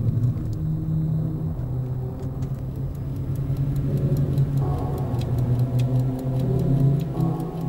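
A pocket watch ticking fast and evenly over a loud, low, steady hum.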